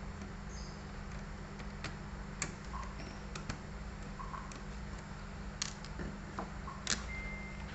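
Scattered sharp clicks and ticks of small screws and plastic laptop parts being handled during disassembly, over a steady low hum.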